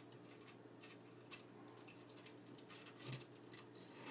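Faint, irregular light clicks and taps of black aluminium extrusion rails and their fittings being handled and fitted together, over a low steady hum.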